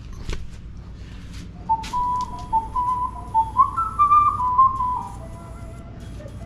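A person whistling a short melody in clear, held notes, with a lower note held near the end.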